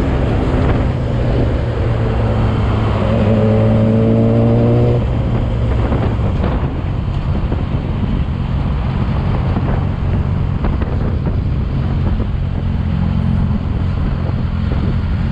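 Sport motorcycle running at steady freeway speed, its engine note and road noise continuous, a little louder for about two seconds around three seconds in.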